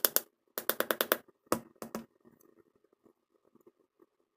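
A metal spoon scooping and packing cornstarch powder in a shot glass: a rapid run of crisp crunching clicks in the first second and a quarter, a few single scrapes after it, then only faint ticks.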